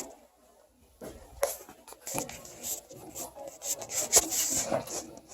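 Irregular scraping and rubbing with light knocks, starting about a second in, and one sharper knock a little past the middle: hands working with parts or tools.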